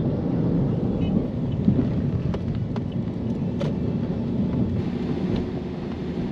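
Car ride heard from inside the cabin: a steady low rumble of engine and tyres on the road, with a few light clicks.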